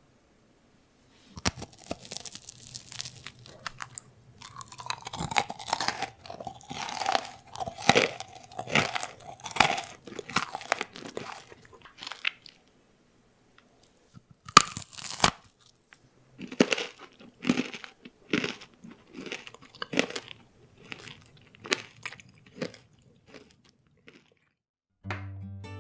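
Close-up crunch of a bite into a crisp baked chocolate chip and pretzel cookie about a second in, then chewing. A second crunching bite comes about halfway through, followed by more chewing.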